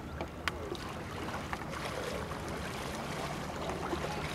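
Paddles of a two-person sprint kayak dipping and splashing in the water as the boat pulls away from the pontoon, with a few sharp knocks near the start, over a steady background hiss that slowly grows louder.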